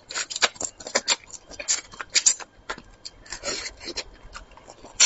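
Close-miked eating sounds: wet chewing and lip smacking while eating braised fish, a quick, irregular run of sharp smacks and clicks.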